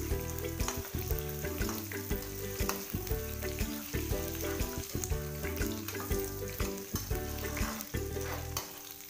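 Bay leaves and whole spices sizzling in hot oil in a kadhai as they are stirred with a metal slotted spoon. Background music with a beat plays underneath.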